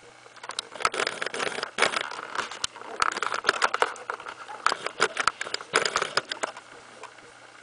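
A young puppy's paws scrabbling and scratching on newspaper and fleece bedding. It makes bursts of crackling rustle with quick clicks, starting about half a second in and dying away after about six seconds.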